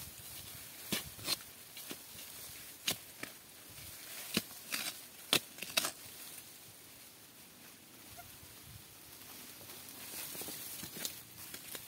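Irregular sharp snaps and crackles of twigs, leaves and small stems in a bush, about a dozen spread unevenly and loudest in the middle, as small green gourds are picked by hand.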